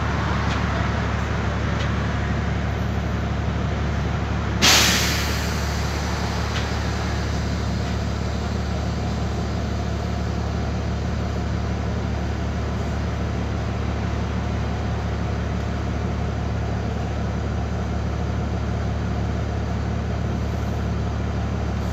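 A BMC Belde city bus's Cummins ISBe 6.7 diesel engine idling steadily, heard from inside the passenger cabin. About five seconds in comes a sharp hiss of compressed air from the bus's air brake system, fading within a second.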